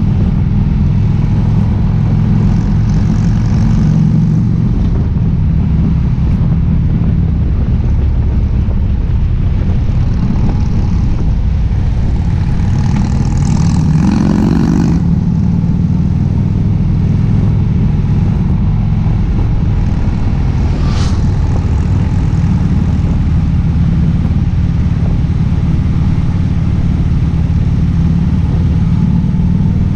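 Harley-Davidson Ultra Limited's air-cooled V-twin engine running steadily on the road, heard from the moving bike. About halfway through the revs climb briefly, then settle back.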